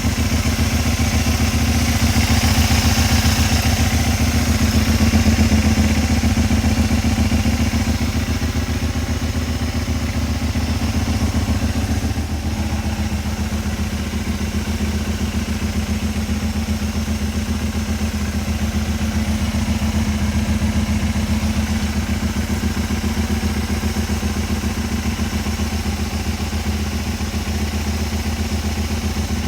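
Kawasaki Eliminator 250V's 250 cc V-twin engine running at a steady idle after its idling fault has been repaired, a little louder for a few seconds near the start.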